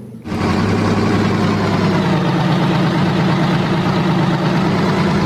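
Steady idling engine sound of a cement mixer truck, with a low hum under a noisy rumble, coming in abruptly.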